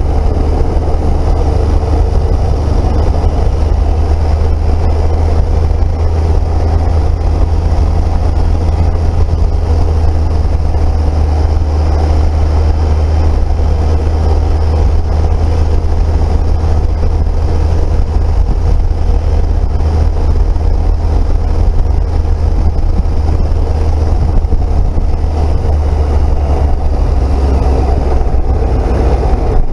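Triumph Speed Triple motorcycle's three-cylinder engine running steadily at a cruise on the open road, with a constant deep low rumble.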